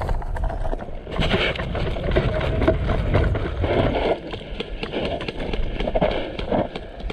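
Running footsteps on dry dirt, a string of uneven thuds and scuffs.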